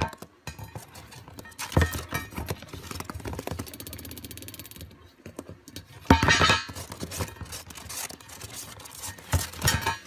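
Light plastic dish clattering, knocking and scraping on a cardboard floor as a masked lovebird tips and pushes it, with loud knocks about two seconds in, about six seconds in and again near the end.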